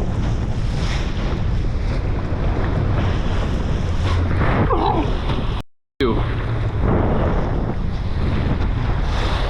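Wind buffeting the microphone over the rumble of a boat on open water, steady throughout; the sound drops out completely for a moment about six seconds in.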